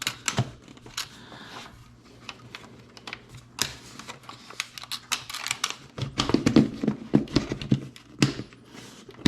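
Branson 3725h tractor's air filter housing cover being worked into place by hand: an irregular run of clicks, knocks and scrapes as the new filter and cover are repositioned, busiest about six to seven seconds in.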